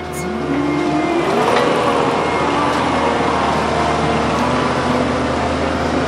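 Tracked skid loader's diesel engine revving up over the first second and a half, then running steadily at high throttle while the machine carries a load of hay bales.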